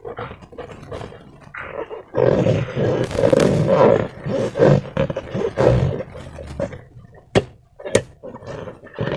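Slime-filled rubber balloon being squeezed and worked by hand: a rough, rubbery squeaking and squelching that comes in spells, loudest in the middle, followed by two sharp clicks near the end.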